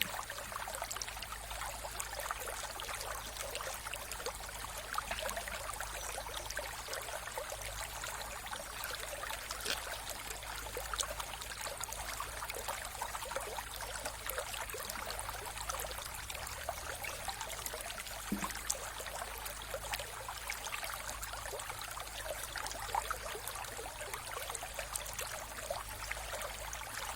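Mountain river running over stones: a steady rushing with fine splashing and trickling, no pauses or changes. A faint low hum runs underneath.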